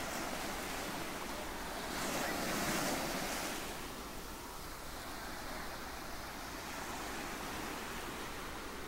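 Ocean surf breaking and washing up a sandy beach, a steady rush that swells about two seconds in and eases again.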